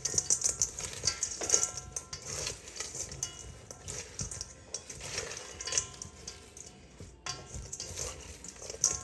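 Hands tossing a garden salad with croutons in a stainless steel mixing bowl: irregular rustling and scraping of the vegetables against the metal.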